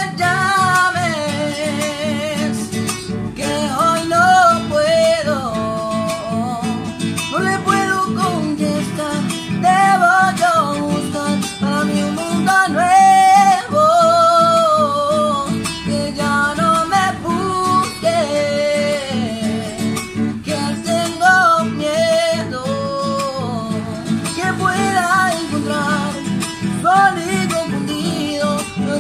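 A man singing a chamamé-style song while accompanying himself on an acoustic guitar.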